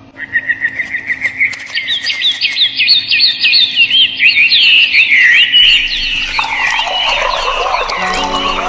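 Rapid, overlapping bird chirps, several a second, rising and falling in pitch; low steady music tones come in near the end.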